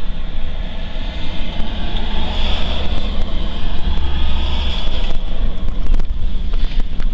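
Strong gusty wind heard from inside a parked car: a loud low rumble and rushing noise that swells with the gusts.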